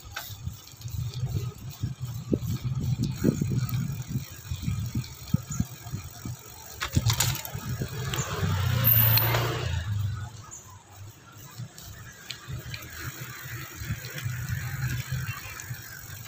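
Riding a bicycle along a concrete street: a low rumble of wind and road noise with a few knocks from the bike. A motor scooter swells past about eight to ten seconds in.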